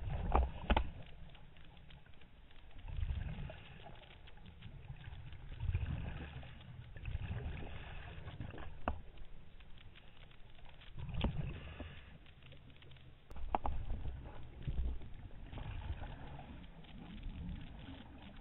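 Scuba breathing heard underwater through a regulator: a low rumble of exhaled bubbles about every three seconds, with a hiss of inhaling between them. A few sharp clicks are heard along the way.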